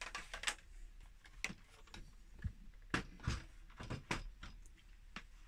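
An early VIC 20's plastic case being set down on a desk and shuffled into place against a Commodore 64: a scatter of light knocks and clicks of plastic on wood and plastic.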